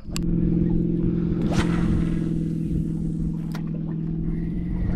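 Boat motor running steadily at an even speed, cutting in abruptly at the start.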